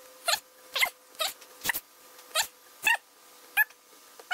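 Johnson 40 HP outboard lower-unit shift rod squeaking as it is twisted by hand. There are short squeaks, about two a second, each one bending in pitch, one for each twist as the rod is screwed in until it stops.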